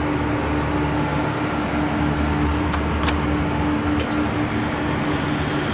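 Steady mechanical hum with one held tone, and a few sharp clicks about three and four seconds in.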